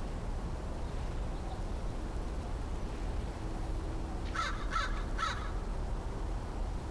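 American crow giving three quick caws about four and a half seconds in, over a steady low background rumble.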